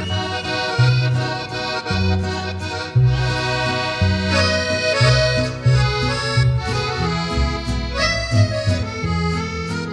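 Instrumental introduction of a song: an accordion plays sustained chords and melody over a bass line that steps from note to note about once a second.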